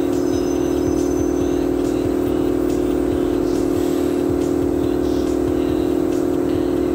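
Steady mechanical hum with a strong low drone that holds the same pitch and level.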